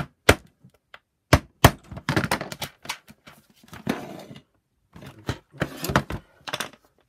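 A few sharp taps on the plastic housing of a Shark NV602UK power nozzle, then irregular plastic knocks and clatter as the nozzle is handled and turned over on a wooden tabletop.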